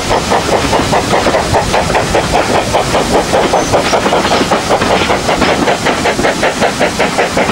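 Steam-hauled train running steadily, with an even, rapid beat of about five strokes a second.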